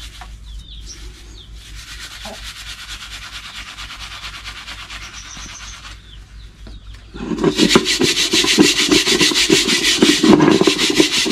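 Steel-wool scouring pad scrubbing soot off the bottom of a blackened metal cooking pot with bar soap. At first there is softer rubbing as the pad is worked against the soap bar. From about seven seconds in come loud, rapid back-and-forth scouring strokes on the pot.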